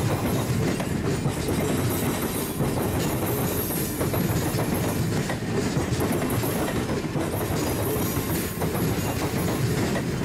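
Stainless-steel passenger cars of an excursion train rolling past close by, a steady rumble of wheels on the rails with a running clatter of clicks.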